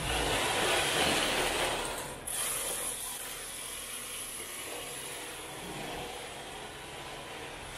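Rear-wheel-drive MST RC drift car sliding on a concrete floor, its tyres scrubbing with a loud hiss for the first two seconds, then a quieter steady scrub as it keeps driving.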